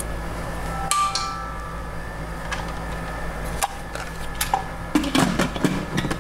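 Scattered knocks and clinks of a wooden spoon against an Instant Pot's stainless steel inner pot, one ringing briefly about a second in. Near the end comes a quick run of clatter as the plastic pressure-cooker lid is set onto the pot.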